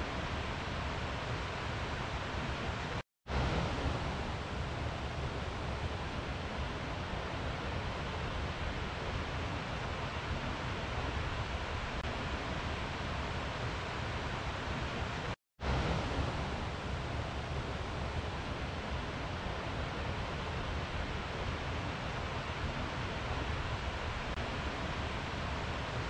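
Steady rush of running water, an even hiss with no pitch. It cuts out to silence for a split second twice, about 3 seconds in and again about 15 seconds in.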